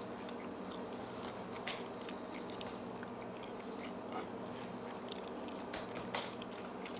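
Faint, scattered clicks of a disc detainer pick turning the discs inside a disc detainer padlock under tension, a few seconds apart, over a steady low hum. Nothing is giving at the front discs.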